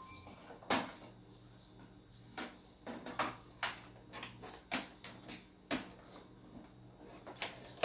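Plastic protective film and tape seals being peeled and pulled off a new printer's plastic casing: irregular sharp crackles and snaps, about ten of them.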